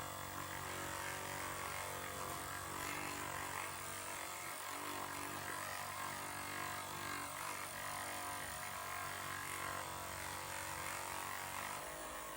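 Handheld percussion massage gun's motor running steadily at its highest speed setting, level 9, a constant buzzing hum. Its deepest part drops away near the end.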